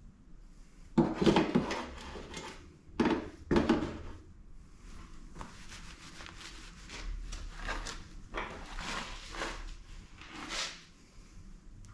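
Honda K20 bottom-end parts being handled during teardown: a few clunks and knocks near the start, then lighter scraping and sliding of parts.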